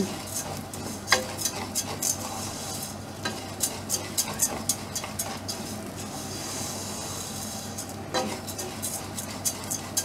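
Wooden spoon stirring and scraping dry rice around a stainless steel saucepan, in irregular short clicks and scrapes, over a light sizzle of the rice toasting in olive oil and garlic before the water goes in.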